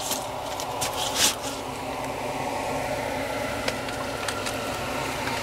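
A steady motor hum, with a few light clicks and knocks from handling.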